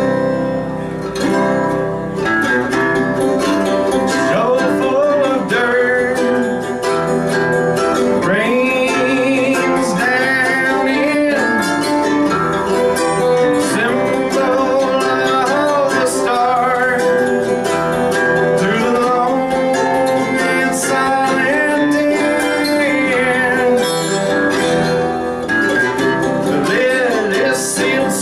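Live acoustic string-band music: a mandolin and another plucked string instrument playing, with a voice singing.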